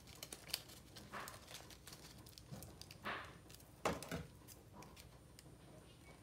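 Faint rustling of folded paper being handled, with light clicks and taps and a sharper knock about four seconds in.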